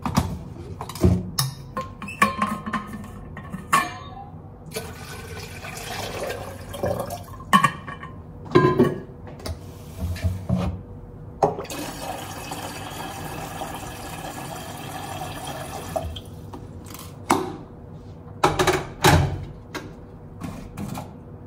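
Water pouring into a container for about four seconds around the middle, with clicks and knocks from a kettle and a thermos bottle being handled before and after.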